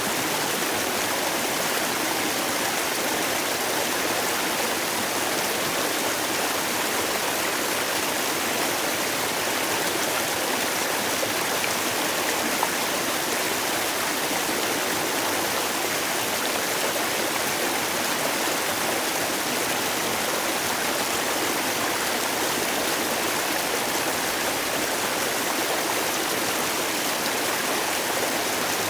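Mountain valley stream flowing, a steady, even rush of water with little deep rumble.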